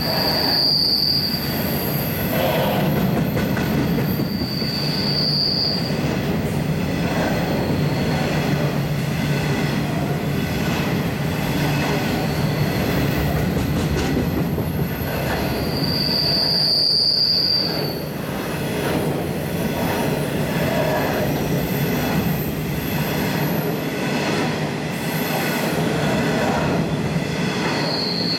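Empty coal hopper wagons rolling past steadily on a curve. A high-pitched wheel squeal comes and goes about four times, from wheel flanges grinding against the rail through the curve.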